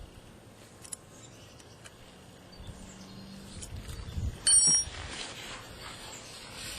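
Faint clicks of metal parts being handled as a stainless locking-hub cap is fitted and bolted onto the hub, with one sharp, bright ringing metallic clink a little past halfway.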